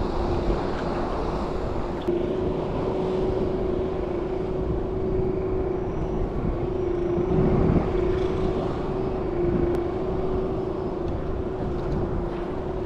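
Bixpy electric kayak motor running steadily in low gear, holding the kayak in position against the tide, with a steady hum over a constant rush of background noise.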